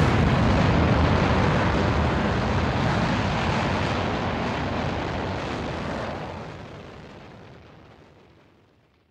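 The end of a background music track: a dense, rumbling, noise-like sustained final note with a long tail that fades slowly and dies out near the end.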